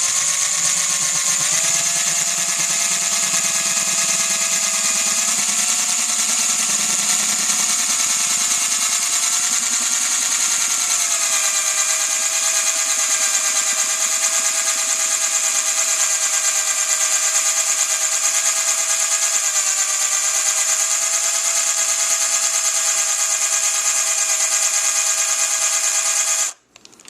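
Cordless drill spinning a diamond hole saw against a brass rifle cartridge case: a steady motor whine with a harsh, high grinding hiss from the cut. The motor's pitch shifts a few times as the bit bites, and the drill stops suddenly near the end.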